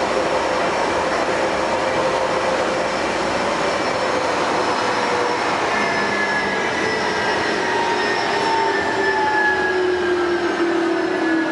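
Bombardier rubber-tyred train on the Taipei Metro Wenhu line running at speed, a steady rush of running noise. From about halfway through, several whining tones slide down in pitch. The uploader reports that this train makes an abnormal noise while running, which the uploader puts down to the Bombardier cars' long service.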